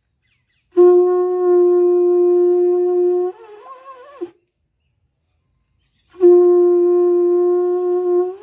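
Large conch shell (shankh) blown in two long blasts, each a single steady horn-like note lasting about two and a half seconds; the first wavers and breaks up as it ends, and the second starts about two seconds later.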